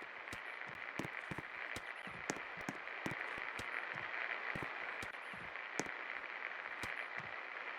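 A 56-inch Pak Floral ceiling fan running, a steady whooshing hiss with scattered irregular clicks and crackles over it.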